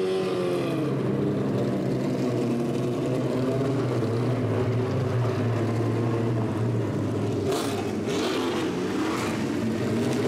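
Race car engines from classic McLaren F1 GTRs and a BMW 3.0 CSL running at low speed as they roll past. The pitch drops at the start and then holds low and steady. A few sharper crackling bursts come about three-quarters of the way through.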